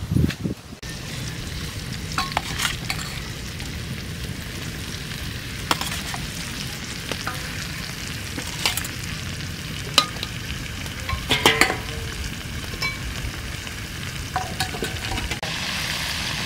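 Fish pieces frying in a steel wok, with a steady sizzle. Scattered sharp clicks and scrapes of a metal utensil against the wok come through it, several close together a little past the middle.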